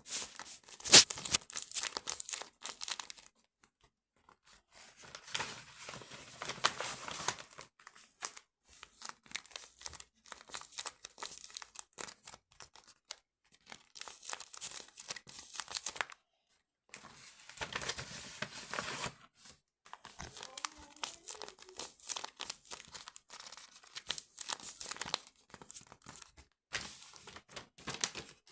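Irregular bursts of crinkling and tearing noise with scattered sharp clicks, stopping and starting every few seconds, as when crinkly material is handled.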